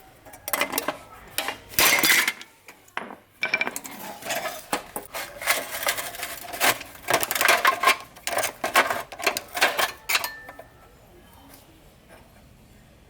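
Small metal parts clinking and scraping, with many quick irregular clicks. The clatter stops about ten and a half seconds in.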